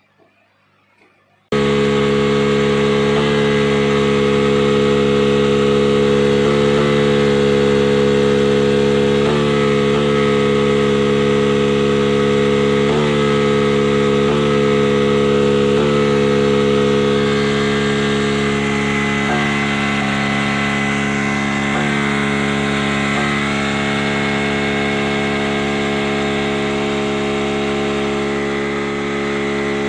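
Outboard boat motor running with its cowling off. It starts about a second and a half in and holds a steady drone, with brief dips every second or two. It is shown as the kind of poor running that a split, leaking carburettor float can cause.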